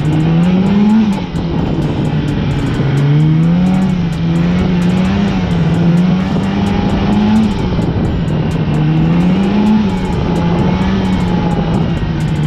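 Polaris Indy 550 two-stroke twin snowmobile engine running under way on the trail, its pitch rising and falling several times as the throttle is opened and eased off.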